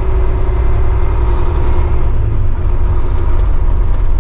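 Volvo semi-truck's diesel engine running steadily, heard from inside the cab, with most of the sound sitting low and a few steady tones above it.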